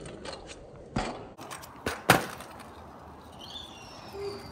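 Stunt scooter clacking on asphalt as the rider hops it into a flat trick and lands: a few sharp knocks of the wheels and deck on the ground, the loudest about two seconds in.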